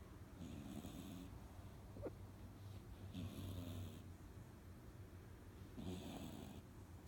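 A 3-month-old Chihuahua–Jack Russell mix puppy snoring like a big man. Three snores about two and a half seconds apart, each about a second long, with a short high squeak about two seconds in.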